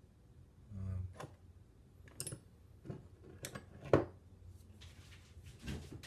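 Small metal parts and tools clinking and knocking on a workbench as they are picked through, with a low thump just under a second in and one sharp click about four seconds in.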